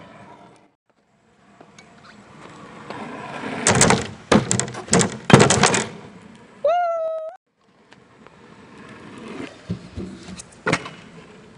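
Stunt scooter wheels rolling on asphalt and building up, then a cluster of loud clattering knocks as the scooter hits the wooden ramp and lands. A short rising high-pitched tone follows, then more rolling and one sharp knock near the end as the scooter meets a wooden box.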